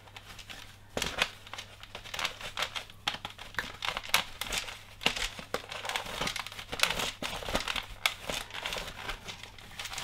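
Cloth rubbing and rustling against the plastic housing of a Dyson V11 high torque cleaner head as its brush-bar compartment is wiped out, in irregular strokes with small plastic knocks and clicks.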